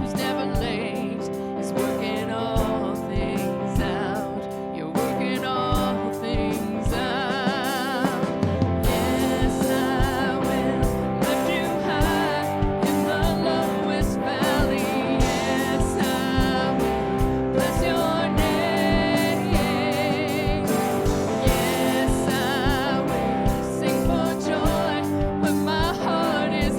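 Live worship band playing with guitar and a steady drum beat, with singing; the band fills out and the drums grow busier about nine seconds in.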